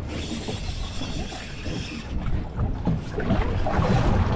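Wind buffeting the microphone on a boat in choppy water, with water washing and splashing around the hull; it grows louder near the end.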